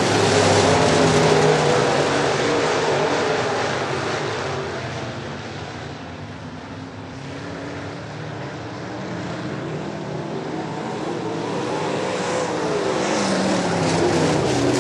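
Topless dirt modified race cars racing, their engines revving up and down in pitch through the turns. The sound is loudest at first, fades about six seconds in as the cars move away, then builds again near the end as they come back around.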